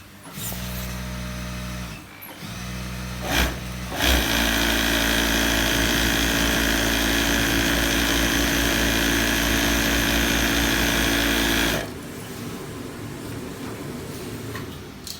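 Italian sewing machine stitching in two short bursts, a sharp knock, then a steady run of about eight seconds that stops suddenly. A quieter steady noise carries on after it stops.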